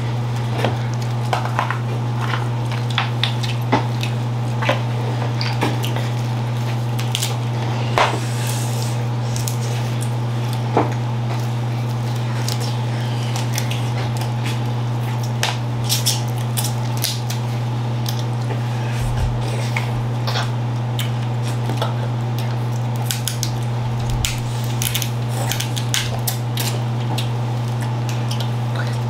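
Boiled crab leg shells being cracked and pulled apart by gloved hands: a scatter of short, sharp cracks and clicks, over a steady low hum.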